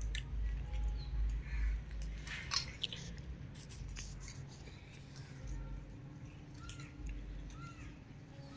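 A crowd of cats eating off a concrete floor: scattered small crunches and clicks over a low, unsteady rumble on the microphone, with a couple of faint short squeaks in the second half.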